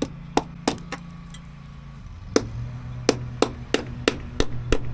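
Hammer blows: a few spaced strikes, then from about two seconds in a steady run of about three strikes a second, while driving fasteners or the hydrant's mount into the wall. A steady low hum runs underneath.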